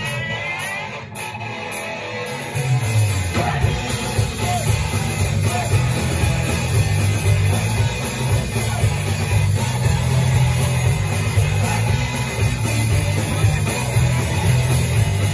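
Live rock band playing: electric guitars, bass and drums, getting louder a couple of seconds in.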